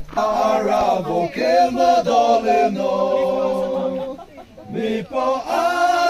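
Background music: a song with sung vocals in long held notes. It starts abruptly and pauses briefly about four seconds in.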